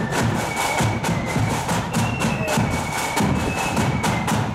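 A marching flute band playing: flutes carry a high, held melody over a quick, steady rattle of drum strokes.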